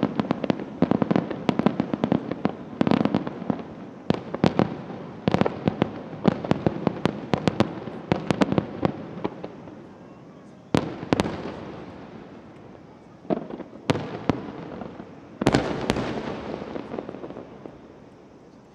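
Starmine fireworks display: fast volleys of shell bursts bang in quick succession. About halfway through they thin to a few single loud bursts, each with a long echoing tail, and the sound fades near the end.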